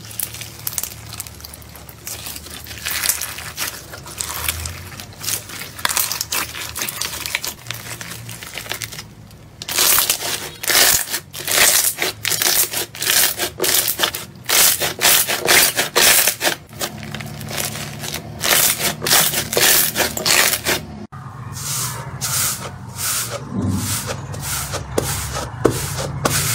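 Hands squeezing and kneading a clear slime packed with flat plastic beads, giving a dense, fast run of crunchy crackles and pops that grows louder about ten seconds in. Near the end it changes to fewer, softer pops as a hand presses into a thick white slime.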